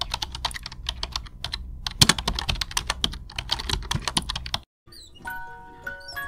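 A dense run of irregular, rapid clicks and taps over a low rumble, cutting off about four and a half seconds in. Then a light tune of clear, stepping notes begins.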